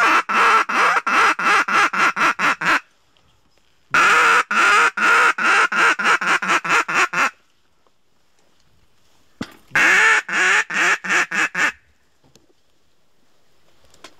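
A mallard duck call blown in three runs of loud, rapid hen quacks, a dozen or so notes per run, the notes growing shorter toward the end of each run. It is calling to ducks circling over the decoys.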